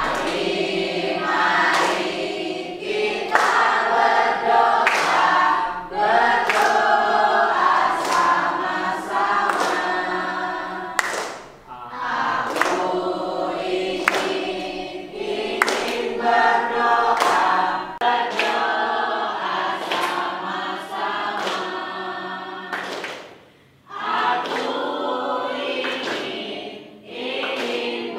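A class of students singing together as a group, clapping their hands in a steady rhythm of about two claps a second. The singing breaks off briefly twice, between lines.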